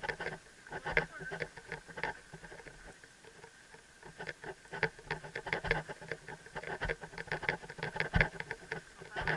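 Helmet-mounted camera rattling and clicking against a rider's helmet as the horse walks, an irregular run of sharp plastic clicks several times a second that thins out briefly about three seconds in.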